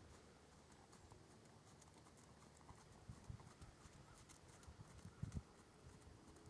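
Faint hoofbeats of a New Forest pony trotting on sand arena footing, dull thuds that grow louder between about three and five and a half seconds in.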